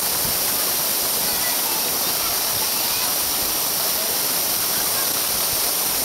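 Steady rush of falling and flowing water from Erawan waterfall's second-tier cascade into its pool: an even, unbroken hiss.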